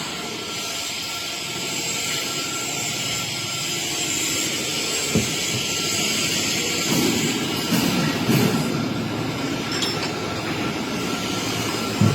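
Steady machinery noise in a busy workshop: a constant hiss and hum with a high steady tone, louder rough stretches about two thirds of the way through, and a couple of single knocks.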